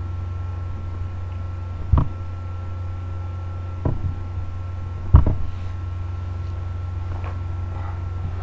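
A steady low electrical hum runs on the computer's microphone line. Three short mouse clicks cut through it about two, four and five seconds in.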